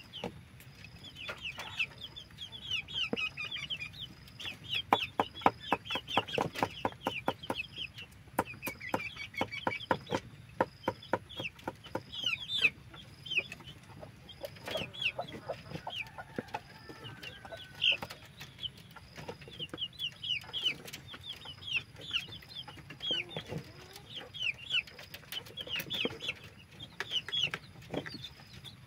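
Chickens clucking, with many short high falling calls throughout, over a knife chopping on a wooden board in quick runs of knocks, loudest about five to seven seconds in and again around ten seconds.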